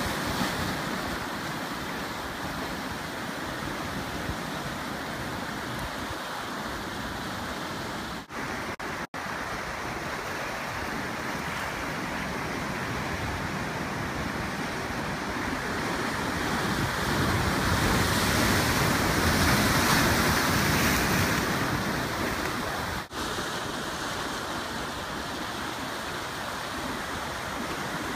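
Ocean surf breaking and washing along the shore and tide pools: a steady rush of water that swells louder for a few seconds about two-thirds of the way through as a bigger wave comes in. The sound cuts out for a split second three times.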